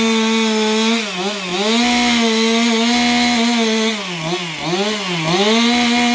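Two-stroke chainsaw running at full throttle and cutting wood. Its pitch sags briefly three times as the chain bites into the wood, then recovers.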